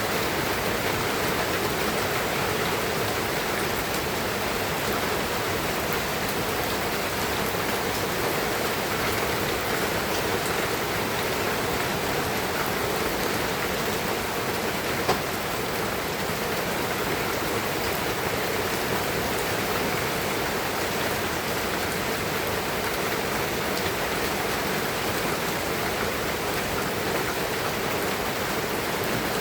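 Steady rain falling, an even, continuous patter with no let-up. A single sharp click comes about halfway through.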